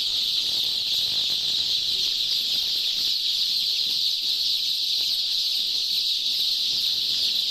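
A dense, steady, high-pitched chirping chorus with no change in level.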